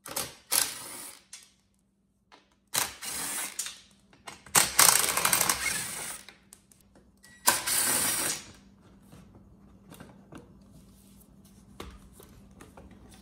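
Cordless driver spinning out the screws that hold a generator's control panel, in several short runs, the longest about two seconds near the middle. Faint clicks and handling noises follow once the screws are out.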